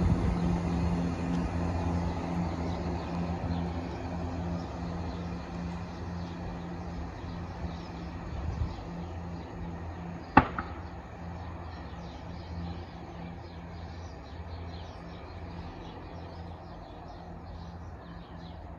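Chiltern class 168 diesel multiple unit running under power as it pulls away, its diesel engine hum fading steadily. A single sharp click sounds about ten seconds in.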